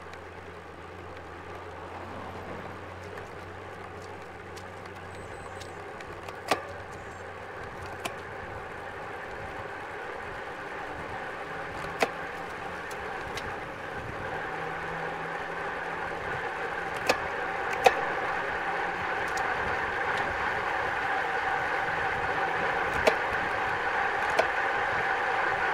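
Wind and tyre rush on a road bike descending at speed, growing steadily louder as the bike gathers pace, with several sharp clicks scattered through it.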